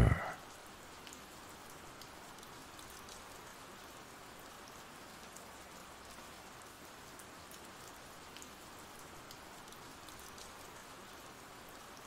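Soft, steady rain ambience, a recorded rain sound effect, with faint scattered drop ticks.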